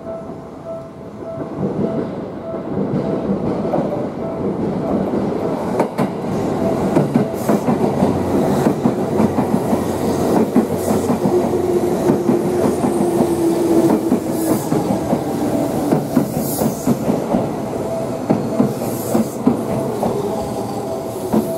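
Seibu 2000 series electric train running into a station and braking to a stop. Its wheels clatter over the rail joints in dense, rapid clicks that swell in over the first couple of seconds. A drawn-out tone comes in the middle as it slows, and a few brief high hisses follow later on.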